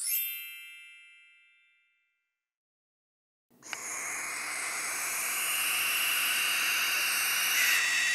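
A bell-like chime rings once and dies away over about two seconds. After a short silence, a barn owl gives a harsh, hissing screech that lasts about five seconds.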